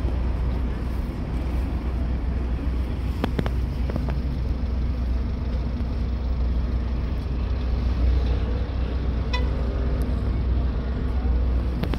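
Steady street ambience: a constant low traffic rumble with an even background haze, and a couple of short clicks about three seconds in.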